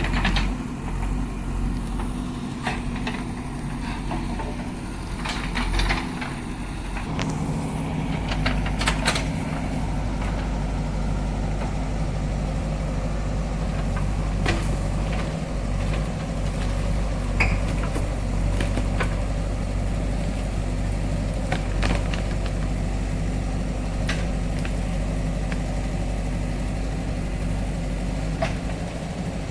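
Backhoe loader's diesel engine running steadily, its note stepping up about seven seconds in, with scattered sharp knocks and cracks.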